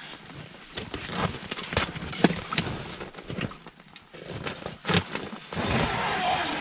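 Irregular knocks, clicks and scraping on ice and snow as a hooked burbot is being worked up through an ice hole, growing louder and busier near the end.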